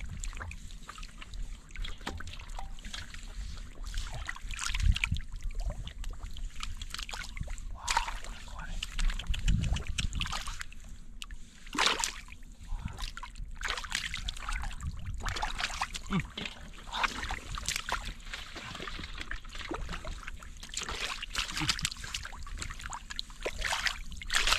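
Shallow water splashing and sloshing in irregular bursts, with trickling in between, as water is stirred by hand or foot.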